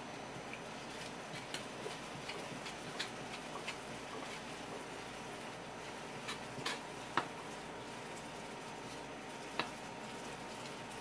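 Kitchen knife tapping and scraping lightly on a wooden cutting board while the thin skin is peeled from a bigfin reef squid mantle: scattered light ticks, a few sharper ones past the middle.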